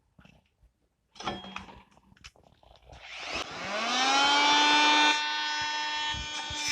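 A Chicago Electric corded oscillating multi-tool, after a few knocks, starts up about three seconds in: its pitch rises over about a second and then holds as a steady high-pitched whine, dropping a little in loudness near the middle.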